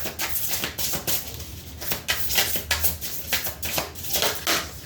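A deck of tarot cards being shuffled by hand: a rapid, irregular patter of cards slapping and clicking against each other.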